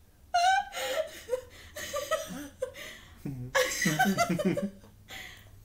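A woman laughing in several bursts, fading out near the end.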